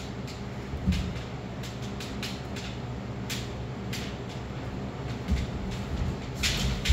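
Kendo fencers facing off with bamboo shinai: light clicks and brushing sounds come every half second or so over a steady low hum, with a low thump about a second in and a louder rush of noise near the end.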